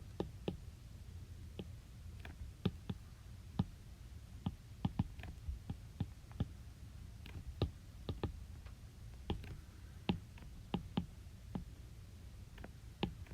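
Sparse, irregular clicking of computer keys, a few clicks a second with short pauses, as an equation is entered, over a faint low steady hum.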